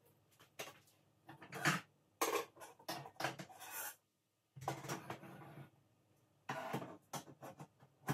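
Irregular bursts of scraping and clattering from dishes and kitchenware being handled. There is a short dead-silent gap about four seconds in.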